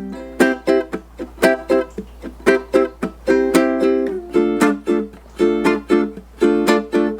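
Ukulele strummed in a steady, accented rhythm, playing the song's two chords, D minor and a high C.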